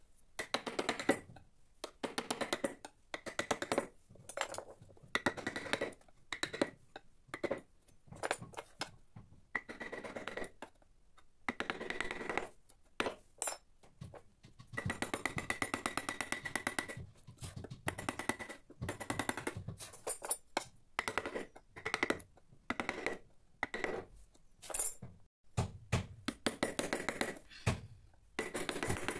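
Gouge and chisels pushed by hand through teak, cutting the carving: a series of crisp scraping strokes, each a quick crackle of fine ticks lasting a second or two, with short pauses between strokes.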